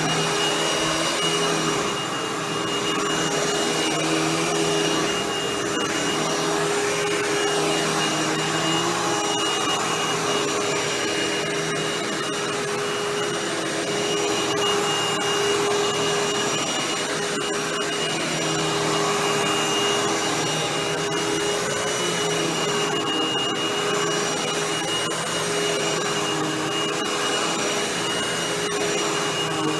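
Hoover WindTunnel Anniversary Edition bagless upright vacuum running steadily: a high motor whine over a rush of air, with a lower hum that comes and goes every few seconds.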